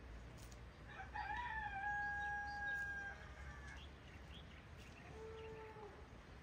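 A rooster crows once, ending in a long held note. A shorter, lower call follows about five seconds in.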